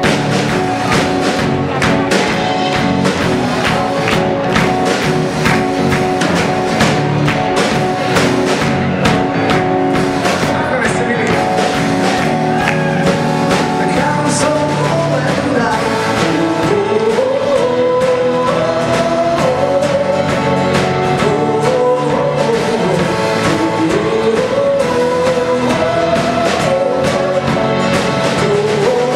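Live pop-rock band playing: acoustic guitar, drums and keyboard with a steady beat, and a male singer's voice carrying the melody from about halfway through.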